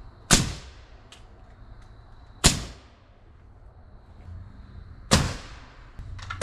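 Pneumatic framing nailer driving nails into timber framing: three sharp cracks, each about two and a half seconds after the last.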